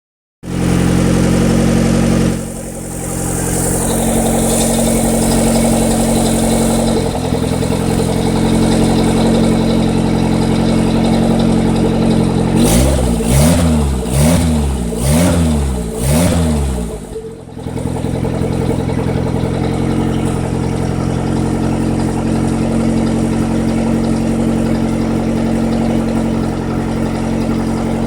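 Turbocharged Honda D15 four-cylinder engine running steadily. For about four seconds in the middle, its speed swings up and down about five times in quick succession, then settles again. The uploader puts this surging down to a failing Walbro 255 fuel pump.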